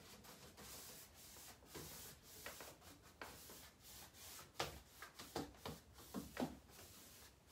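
Paintbrush bristles working wet chalk paint across the painted wooden drawer fronts of a mahogany chest: faint, irregular brushing and scrubbing strokes, a few sharper ones in the second half.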